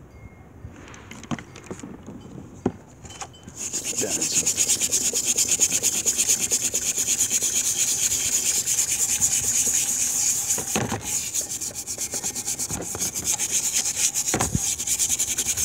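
A hand wire brush scrubbing rust off the wet steel head of a vintage Mann Edge Tool single-bit axe after a vinegar bath. After a few light knocks, fast back-and-forth scrubbing starts about three and a half seconds in and keeps up at a steady, brisk pace.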